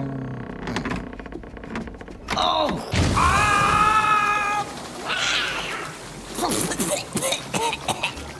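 A cartoon soundtrack: an old woman's low grunting voice, then a loud, high, held cry about three seconds in, followed by a few soft thuds.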